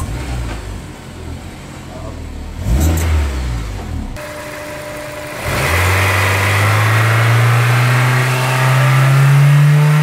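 Honda S2000 four-cylinder engine running low at first. About halfway through it is revved, and its note climbs slowly and steadily toward about 4,500 rpm with a buzz over it, the new vibration that appears around 4,500 rpm.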